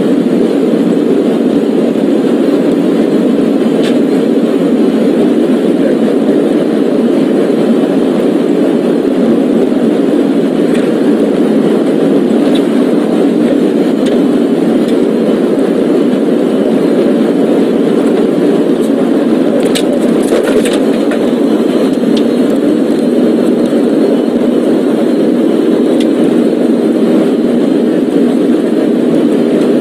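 Steady engine and road noise of a moving car, with a few faint clicks about twenty seconds in.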